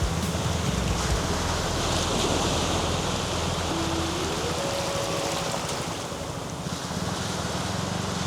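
Sea surf washing onto a beach, a steady rush, with a faint thin tone gliding upward about four seconds in.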